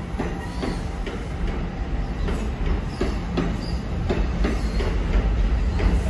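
An NJ Transit double-deck passenger train rolling past. Its wheels clatter over the rail joints about two or three times a second, often in pairs, over a steady low rumble and hum that grows slightly louder.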